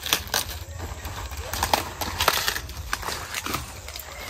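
Crisp crackling and snapping of fresh cabbage leaves as a just-cut cabbage head is handled and its outer leaves are worked off, in a quick irregular run of sharp clicks.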